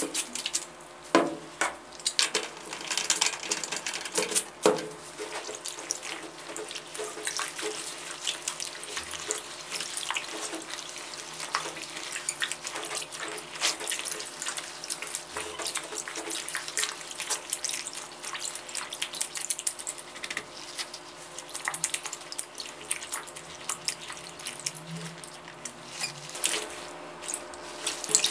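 Bleach solution splashing in a plastic basin as rubber-gloved hands knead and swish a black garment soaking in it, with irregular splashes and drips throughout; liquid is poured in from a glass near the start.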